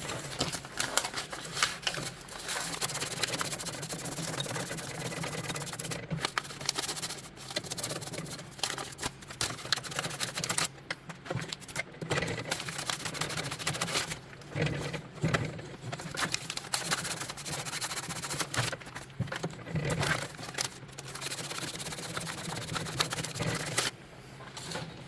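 Fine sandpaper scraping on a snowblower's drive plate to clean off old rubber, a steady scratchy rubbing broken by short pauses and occasional knocks.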